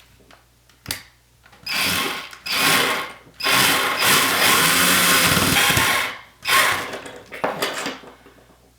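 Electric drill driving a screw through a curtain-rod bracket into a plastic drywall anchor, run in bursts: two short runs, one long run of about three seconds, then two more short runs.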